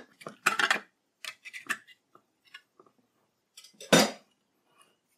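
Handheld can opener cutting around the lid of an oval metal sardine tin: scattered metal clicks and scrapes, then faint ticks. A single sharp metal clack about four seconds in, the loudest sound.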